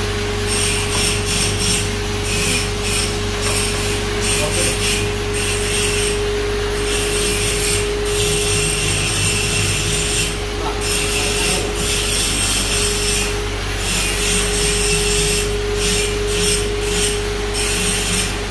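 A hand tool rasping against metal on an opened Kirloskar KC3.1 refrigeration compressor during overhaul, in runs of quick strokes about three a second with short pauses. A steady hum runs underneath.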